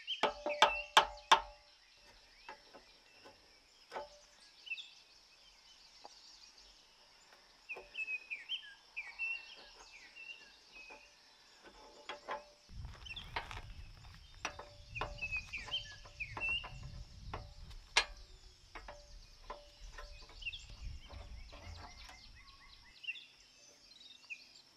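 Metal knocks ringing on steel parts, a quick even run of strikes in the first second and a half, then scattered taps and knocks, while dismantling a rusty tractor front loader. Small birds chirp throughout, and a low rumble runs through the middle.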